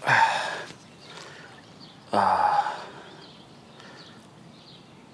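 Two short breathy exhales, like sighs, from a man, one at the very start and one about two seconds later.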